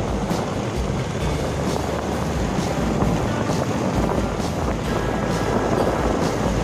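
A motorbike riding along at a steady, loud level, with wind rushing over the microphone.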